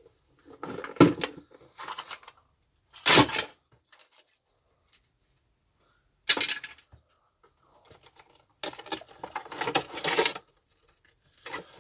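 Knocks and clatter of vacuum cleaner parts and tools being handled during disassembly: a few separate sharp knocks a couple of seconds apart, then a longer run of rattling near the end.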